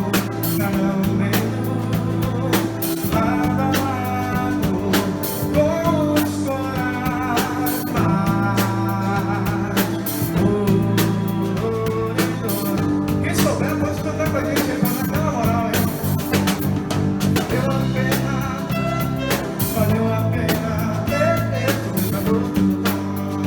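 A band playing a rock song: a singer's voice over guitar, bass and drums.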